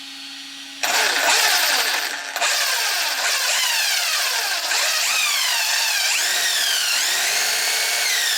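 Brushless RC car motor, a 4585-size 1580 kV unit in a ZD Racing Pirates 3 running on a 4S LiPo, revved in repeated throttle blips: a whine that starts suddenly about a second in and sweeps up and falls away over and over as the drivetrain spins up and down during a first run test.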